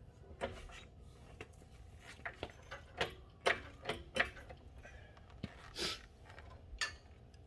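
Irregular sharp metal clinks and knocks from hand work on a truck's sway bar link, as bushings, washers and hardware are fitted and tapped into place, some with a short metallic ring.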